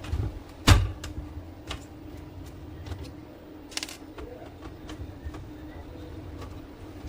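Clicks and knocks of a small screwdriver, screws and plastic printer casing being handled while screws are taken out, with one sharp knock just under a second in.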